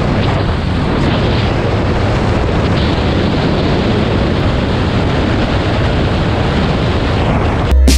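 Steady wind noise on the microphone of a camera mounted on a motorcycle riding at road speed, with the motorcycle's running mixed in. It cuts off abruptly near the end, where electronic music starts.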